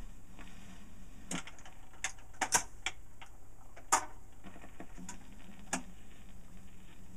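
Automatic record changer of a portable 78 rpm record player cycling between records: a run of irregular mechanical clicks and clunks as the tonearm lifts and swings, the loudest about four seconds in, over a faint steady hum from the turntable motor.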